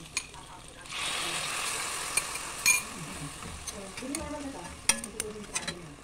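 Pork liver slices with garlic sizzling in a wok while metal tongs stir and turn them, the tongs clicking and scraping against the pan several times. The sizzle swells about a second in and eases off after a couple of seconds.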